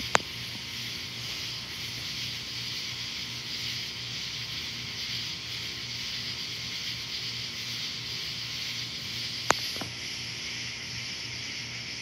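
Steady high hiss of outdoor night ambience with a low hum underneath, broken by two sharp clicks, one just after the start and one about three-quarters of the way through.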